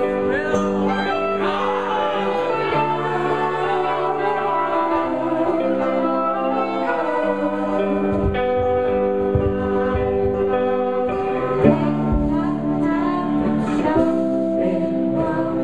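Live psych-folk band playing: guitar with long held notes and voices singing into microphones. A few low thumps come in the second half.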